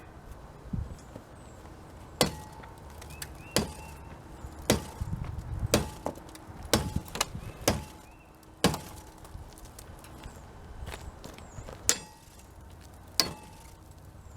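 Thick ice in a canoe being struck to break it up: about ten sharp chopping hits at uneven spacing, some clustered and some a few seconds apart, several leaving a brief ringing tone.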